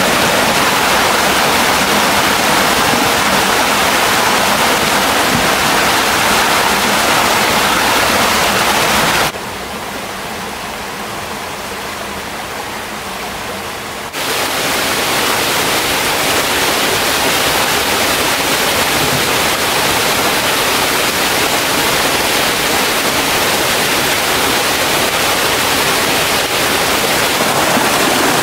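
Water rushing steadily over a waterfall and down a stream. It drops abruptly to a quieter rush about nine seconds in and comes back just as suddenly about five seconds later.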